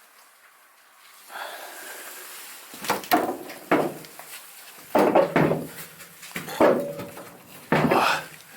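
Someone forcing open the heavy, rusted hood of an old car: a series of loud, short bursts of strained grunting mixed with scraping and knocking metal, starting about three seconds in.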